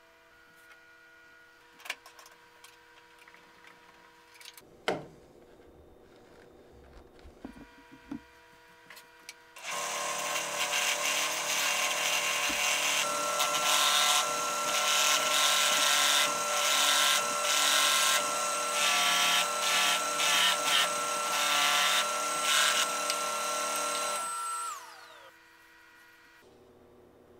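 Benchtop drill press spinning a sanding drum while the edge of a curved wooden piece is pressed against it: a loud rough sanding noise over the motor's steady whine, rising and dipping as the wood is worked. Near the end the motor is switched off and winds down in falling pitch. Before the sanding starts, a few light knocks of wood being handled.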